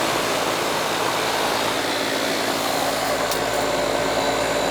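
Coleman air-conditioning condensing unit running, its fan blowing a steady rush of air over a constant hum. There is a light click about three seconds in.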